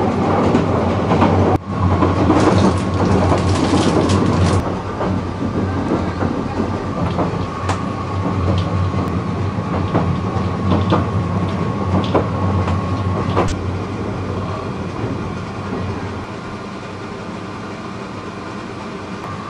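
Passenger train running, heard from inside the carriage: a steady rumble with scattered clicks of the wheels over the rails, louder for the first few seconds.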